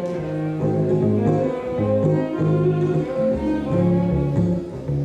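Instrumental music without singing: held notes over a low bass line that steps from pitch to pitch.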